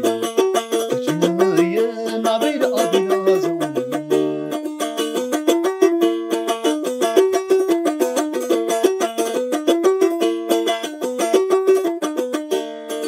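Krar, the Eritrean bowl lyre, plucked in a quick, repeating melody, with lower notes under it for the first few seconds.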